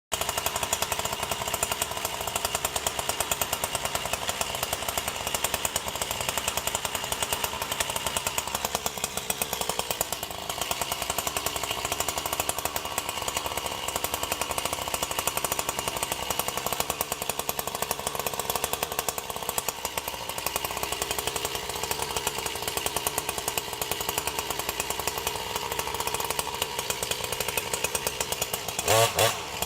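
Two-stroke chainsaw running steadily, with small changes in pitch, as used for felling large trees. Near the end there is a short, louder double burst.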